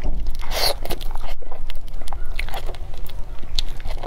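Close-miked eating sounds: bites into soft durian flesh and chewing, with many short mouth clicks and smacks.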